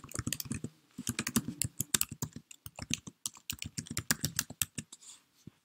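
Rapid typing on a computer keyboard, about seven or eight keystrokes a second, with a short pause about a second in. The keystrokes stop near the end, with one last click.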